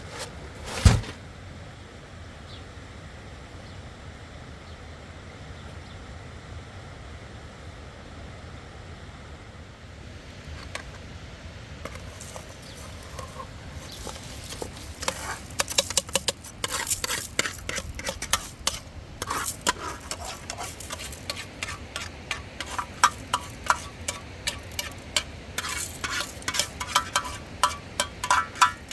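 A loud thump about a second in. From about halfway, a dense, uneven run of clinks and scrapes with a metallic ring.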